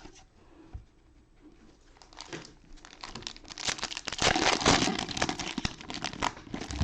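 Cellophane wrappers of trading-card cello packs crinkling as they are handled and opened, starting about two seconds in and loudest around the middle.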